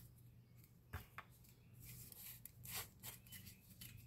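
Faint clicking and rubbing of a small sea salt grinder being twisted and fiddled with in the hands, with a couple of sharp clicks about a second in and a few more near three seconds; the grinder is broken and does not grind.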